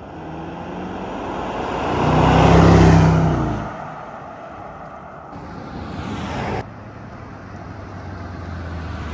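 Land Rover Defender's supercharged 5.0-litre V8 engine running under load, swelling to its loudest about two to three seconds in and then fading. About six and a half seconds in it cuts abruptly to a quieter, steady low engine hum.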